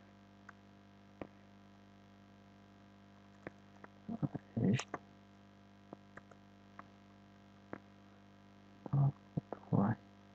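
A steady electrical hum with many overtones runs under sparse keyboard clicks. Two brief bursts of voice come about four seconds in and again near the end.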